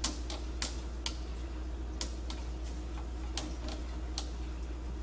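Metal lathe running with a steady hum, with about ten sharp, irregularly spaced metallic clicks over it during thread cutting.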